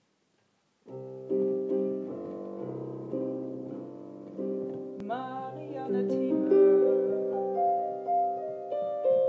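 Piano playing a slow introduction of held chords, starting about a second in and growing fuller and louder from about halfway.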